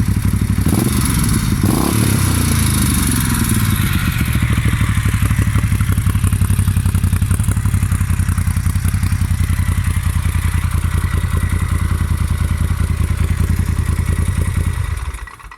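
Moto Guzzi Audace's 1400 cc V-twin running through a Mistral aftermarket exhaust. It is blipped up twice in the first couple of seconds, then settles to a steady beat at constant revs, and the sound cuts off suddenly near the end.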